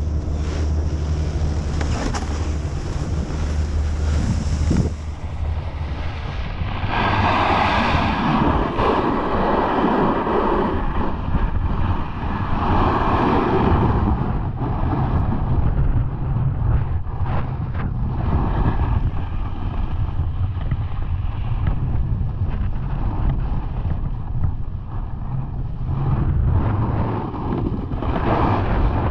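Wind buffeting a snowboarder's camera microphone on the way down a groomed piste, with the snowboard's edge scraping and hissing over the snow. The scraping swells several times, loudest about a third of the way in.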